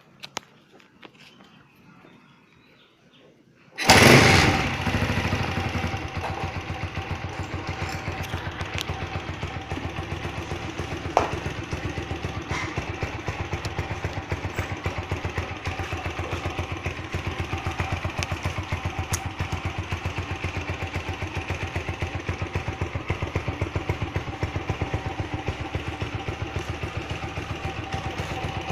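Motoposh Typhoon 150 motorcycle engine, fitted with an aftermarket cam and CDI, starting about four seconds in with a loud burst, then settling into a steady, evenly pulsing idle.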